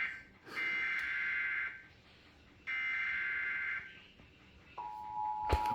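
Emergency Alert System header data: two harsh, buzzy digital bursts, each about a second long with a second's gap between them. Near the end the steady two-tone EAS attention signal starts, with a sharp knock just after it begins.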